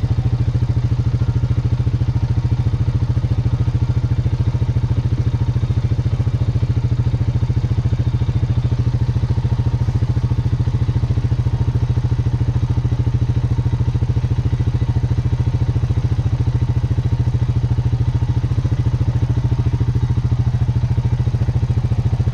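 ATV engine idling steadily with an even, rapid putter.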